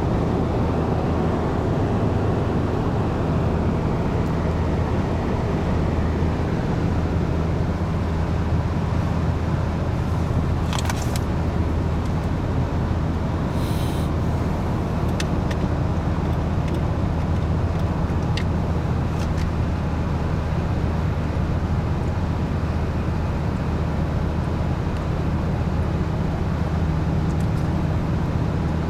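Steady road and engine noise heard inside a car cruising at motorway speed: a constant low drone of tyres and engine, with a few faint clicks around the middle.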